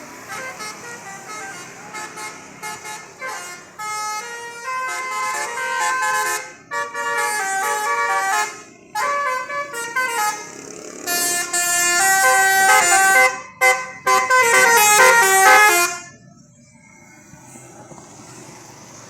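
Basuri 'telolet' multi-tone bus air horn playing stepped, tune-like phrases with short breaks between them, growing louder toward the end. It cuts off suddenly about three-quarters of the way through.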